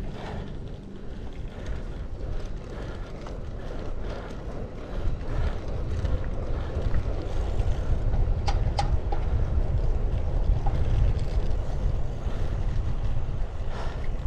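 Wind rushing over the microphone of a riding road bicycle, growing louder about five seconds in. A couple of sharp clicks come near the middle.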